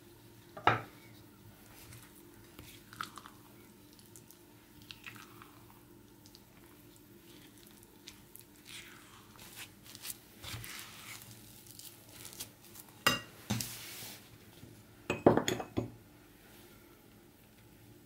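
Silicone spatula stirring and scraping a stiff cottage-cheese and flour dough in a ceramic bowl, with a few sharp knocks against the bowl, the loudest a cluster near the end.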